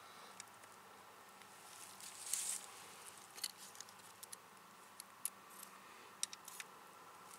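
Steel Conibear 330 body-grip beaver trap being handled as it is set: a brief rustle about two seconds in, then a scattering of small sharp metallic clicks and taps from the trap's springs and catch.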